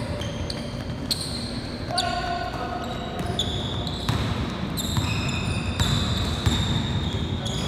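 Basketball game in a gym: a ball bouncing on the court and sneakers squeaking in short high chirps as players run and cut, in a large echoing hall with voices.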